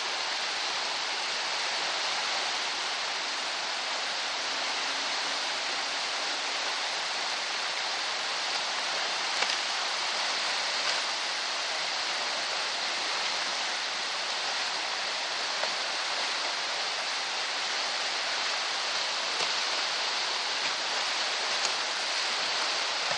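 Steady rush of water, an even hiss with no change, and a few faint knocks here and there.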